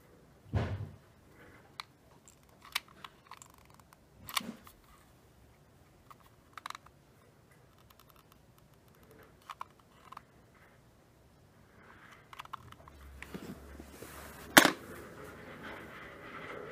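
Scattered clicks and taps from handling seashells and a hot glue gun while glue is put on a scallop shell's edge: a dull knock about half a second in, a few light clicks, and one sharp click near the end, the loudest, with light rustling over the last few seconds.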